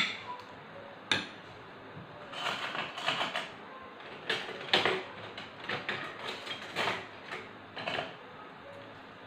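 A metal spoon clinks against a steel ring mould, with another sharp click about a second in. Scattered small clicks and light rustles of kitchen handling follow in short clusters.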